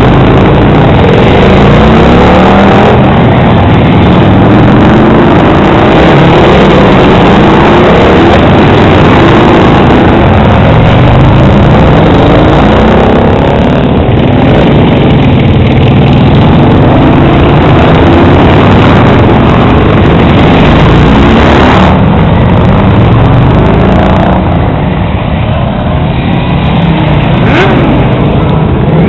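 Loud cruiser and touring motorcycles riding past one after another, their engines revving up repeatedly as each one accelerates by. It eases off slightly in the last few seconds.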